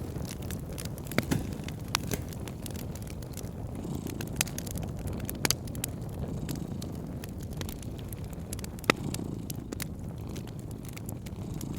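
Wood fire crackling in a fireplace: irregular sharp pops and snaps over a steady low rumble, with one louder pop about nine seconds in.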